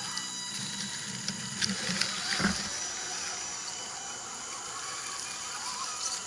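Electric motors and geared drivetrains of scale RC crawler trucks whining steadily as they crawl over roots, with a few short clicks and knocks about two seconds in.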